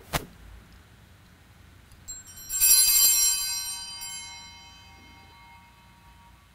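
A set of altar bells shaken once during the Communion rite of the Mass, the cluster of bright bell tones ringing out together and fading over about three seconds. A single sharp knock comes right at the start.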